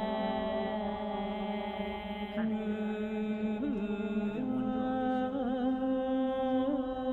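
Slow chant-like music: a voice holds long sustained notes with small wavering turns over a steady drone.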